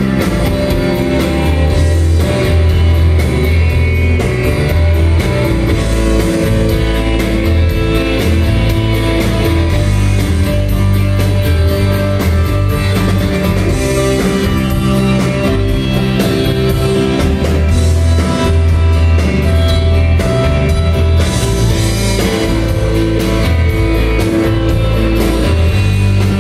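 Rock band playing live, heard from the crowd: acoustic guitar, electric bass and drum kit at a loud, steady level.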